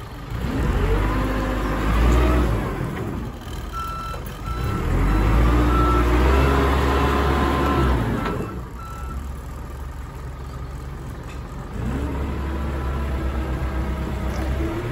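A Terex TA9 nine-tonne dumper's diesel engine revs up three times as the machine is driven back and forth. Its reversing alarm beeps evenly for several seconds in the middle.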